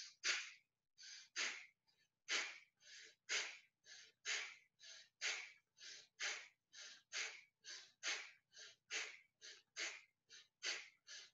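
A woman doing Bhastrika (bellows) breathing through the nose: short, forceful nasal breaths in a steady rhythm, a stronger exhale about once a second with a softer inhale between each.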